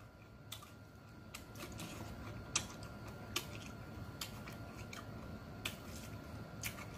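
Close-up mouth sounds of a man chewing a pork chop meal: soft chewing with irregular sharp wet clicks and lip smacks about once a second. A faint steady hum lies underneath.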